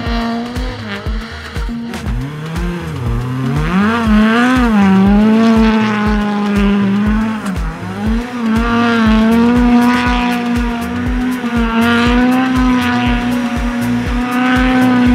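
Rallycross cars' engines revving up and down hard as they drift, with tyre squeal, over background music with a steady beat.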